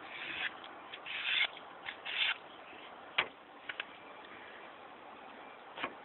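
A knife blade drawn across a sharpening stone in three short scraping strokes, then a sharp click and a few light ticks of the blade or stone being handled.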